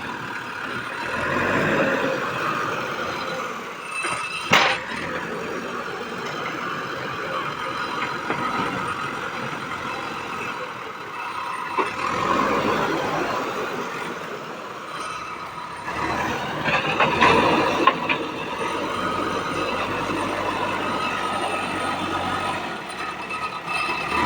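JCB 3DX backhoe loader working: its engine runs under load with steady mechanical noise and metallic squealing, and there is a sharp knock about four and a half seconds in.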